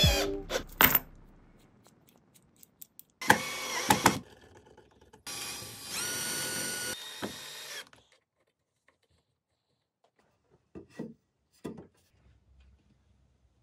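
Cordless drill boring a twist bit into a pine table leg: a fading run at the start, a short burst, then a steadier run of a couple of seconds with a constant motor whine. Near the end come a few short, light knocks.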